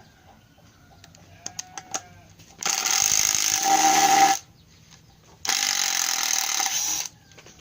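Makita TD110D 12 V cordless impact driver hammering a large screw into wood in two bursts of under two seconds each, its motor whine under the rapid impacts. A few light clicks come just before the first burst.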